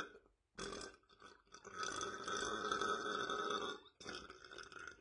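A man burping repeatedly. A short burp comes about half a second in, then a long drawn-out belch of about two seconds, and another burp starts near the end.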